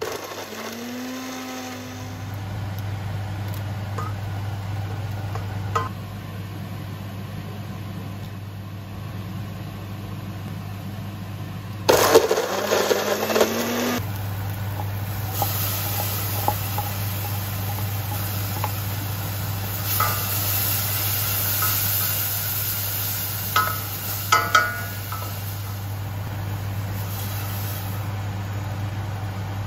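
Small electric blender motor spinning up with a rising whine and running steadily, chopping onion. About twelve seconds in comes a loud clatter and a second short spin-up, then the steady hum again with a few light knocks.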